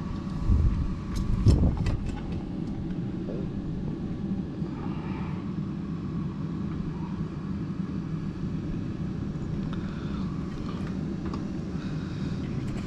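A few light clicks and knocks in the first two seconds as the enclosure's mounting bolt, washer and nut are handled, then a steady low outdoor rumble.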